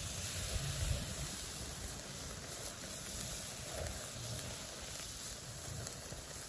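Raw chicken sizzling on the hot wire grate of a charcoal grill, a steady hiss.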